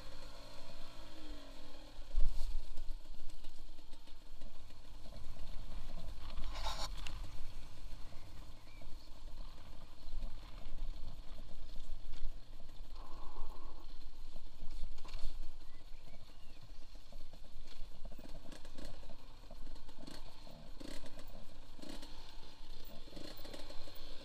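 Two-stroke Yamaha DT 125 dirt bike ridden over a rough grass track, picked up by a helmet-mounted microphone. The engine's revs drop in the first second, then it runs at low revs under heavy wind rumble, with knocks and rattles from the bumps.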